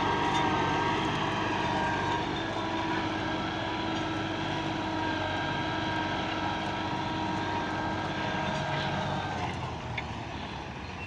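Farm tractor's diesel engine running steadily under load as it pulls a mouldboard plough through soil, growing fainter near the end as it moves away.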